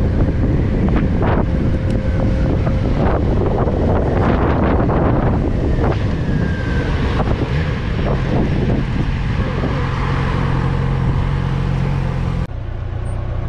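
Motorcycle riding with wind buffeting a helmet-mounted microphone over the engine. A steady low engine drone comes through from about eight seconds in, and the sound changes abruptly near the end.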